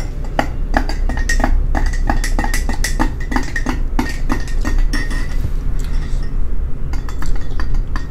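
A long-handled spoon stirring a drink in a drinking glass, clinking against the glass wall about four times a second, then slowing and stopping about five seconds in.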